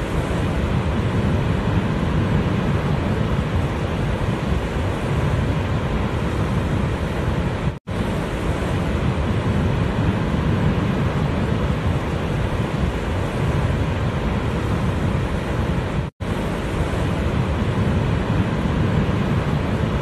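Large waterfall heard from its brink: a steady, deep rushing noise, strongest in the low rumble. The sound cuts out for an instant twice, about 8 and 16 seconds in.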